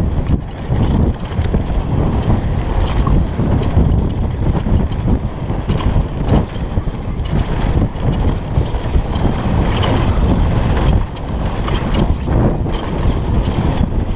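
Wind buffeting a point-of-view camera's microphone during a fast downhill mountain bike descent, with the Specialized Demo downhill bike's tyres rumbling over dry dirt and its frame and chain rattling over bumps.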